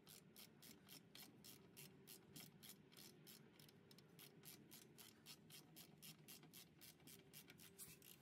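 Faint, rapid, even clicking, about four to five clicks a second: a ratchet wrench turning out a brake caliper bracket bolt.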